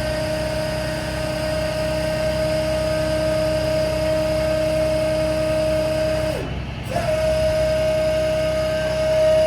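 Truck's Cummins ISB 6.7L diesel running at raised speed with a steady whine over its rumble. The whine drops away briefly about six seconds in, then comes straight back.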